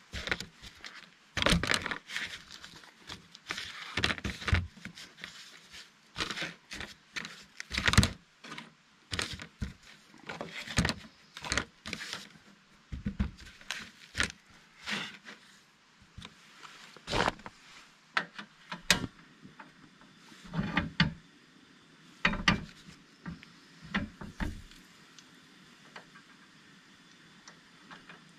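Camp cooking gear being handled: irregular knocks and clatter with some rustling, many separate sharp sounds in no rhythm.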